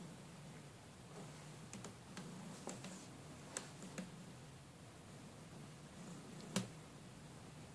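Domestic cat purring faintly and steadily, with a few scattered sharp clicks; the loudest click comes about six and a half seconds in.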